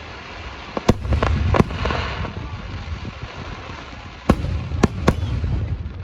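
Fireworks going off: about five sharp bangs over a low rumble, with a short burst of crackling about two seconds in.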